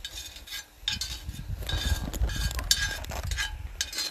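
A metal spoon stirring and scraping in a pot of sautéing jiló, with repeated clinks of metal against the pan and a low rumble underneath.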